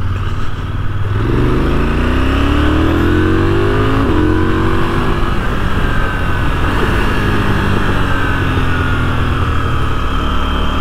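KTM 990 Duke's parallel-twin engine, brand new with only a few miles on it, pulling the bike away. The revs rise, drop at a gear change about four seconds in, rise again, then settle to a steadier note.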